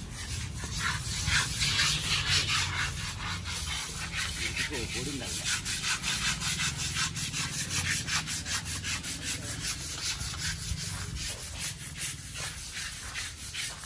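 Hand scrubbers rasping over a wet elephant's hide in quick repeated strokes, over a low steady hum.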